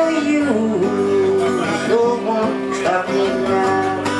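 A song: a voice singing held, gliding notes over strummed acoustic guitar.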